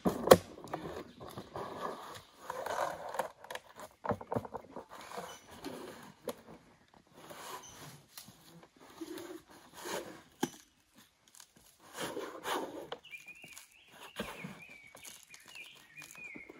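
Birch bark cracking and crackling as it is pried and peeled away from the trunk of a felled log, in irregular sharp cracks and rustles, the loudest crack just after the start.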